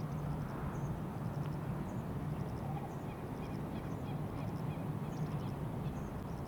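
Outdoor background: a steady low hum over a rumbling haze, with faint, short, high chirps of small birds scattered throughout.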